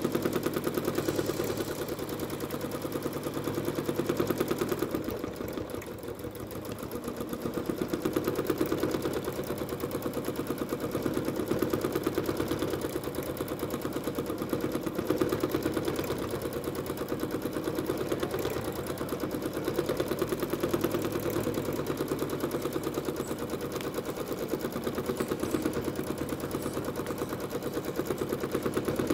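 Janome Skyline S9 sewing machine stitching at speed in free-motion quilting, its needle making a rapid, even patter as the fabric is moved freely under the spring foot. The machine eases off about five seconds in, then picks up again, its speed rising and falling.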